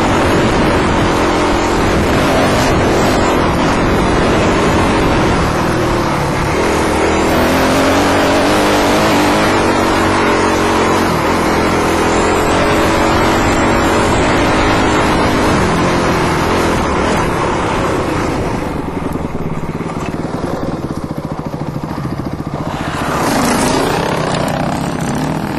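Dirt bike engine, heard from the rider's helmet camera, pulling up a trail with its pitch rising and falling as the throttle changes. It eases off about three-quarters of the way through, with one short rev near the end.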